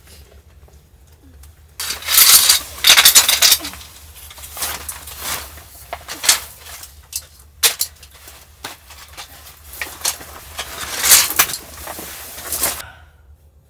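Folding camping cot with a fabric bed and metal frame being unfolded and assembled: rustling of the fabric with clicks and clacks of the frame, starting about two seconds in and loudest at the start and again near the end.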